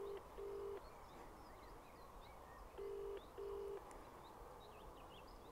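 British ringback tone on a mobile phone's speaker: the double 'ring-ring' pulses, one pair just ending as it begins and another about three seconds in. The call is ringing out, not yet answered.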